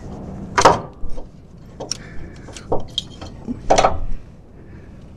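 Metal clinks and knocks as the unbolted turbo actuator is worked loose and pulled off the Holset turbocharger of a 6.7 Cummins. There are about half a dozen sharp clanks, the loudest about half a second in and near four seconds.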